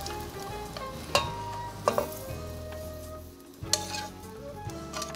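Pasta sizzling lightly in a hot frying pan while steel tongs lift and twirl it onto a plate, with a few sharp clicks of the tongs against the pan and plate, over soft background music.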